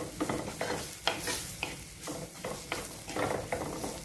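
A spatula scraping and stirring onion-tomato masala in a pot, with the masala sizzling in ghee. The strokes come unevenly, two or three a second. The spice powders are being fried until their raw smell is gone.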